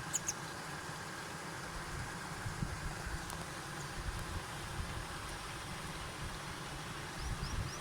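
Steady outdoor background by a shallow stream: an even hiss over an uneven low rumble, with a faint hum in the middle range. A few brief high chirps sound near the start and again near the end.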